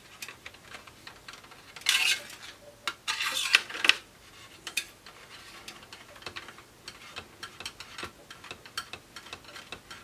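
Small metallic clicks and scraping as a 3 mm hex wrench turns the captive screws on a Mac Pro CPU heatsink, with louder scrapes about two seconds in and again from three to four seconds in.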